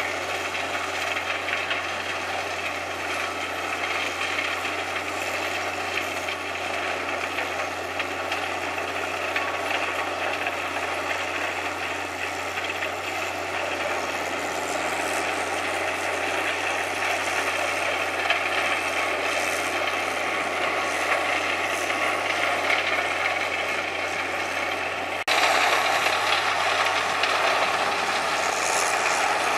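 Self-propelled wood chipper running at working speed, a steady dense mechanical noise with a low engine hum and constant rattling from the crane-fed chipper. About 25 seconds in it cuts abruptly to louder heavy machinery noise.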